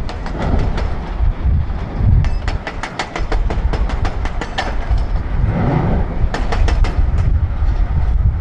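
Heavy diesel machinery, a Volvo excavator and wheel loader, running with a deep rumble, broken by three runs of rapid sharp clacks.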